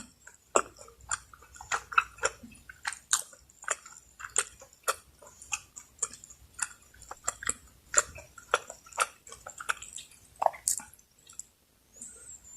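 Close-miked chewing of spicy Bicol Express, pork stewed in coconut milk and chilies: an irregular run of short mouth clicks and smacks, a few a second.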